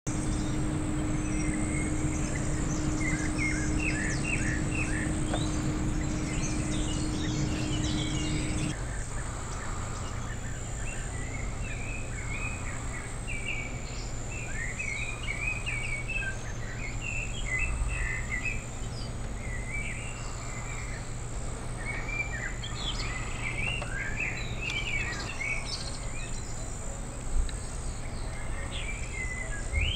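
Outdoor ambience of small songbirds chirping and singing over a steady background noise, with a steady high thin tone throughout. A low steady hum cuts off abruptly about nine seconds in, and there is a single short thump near the end.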